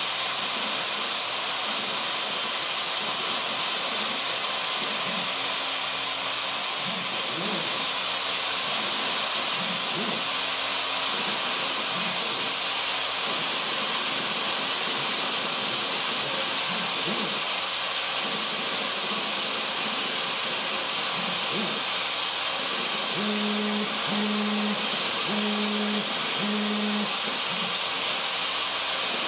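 Craftsman 2 hp router spinning a 1/16-inch tapered ball-nose bit as a CNC machine profiles lettering in a cedar fence picket: a steady high-pitched whine with hiss. Near the end come four short low hums.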